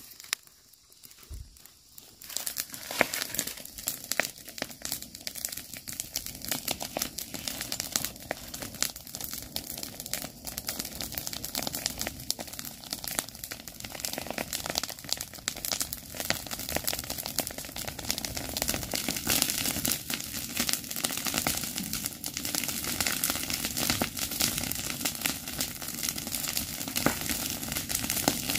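Pile of dry corn stalks and grass burning, a dense crackling of many sharp pops that starts about two seconds in, freshly lit, with rustling of dry stalks as more are gathered onto the fire.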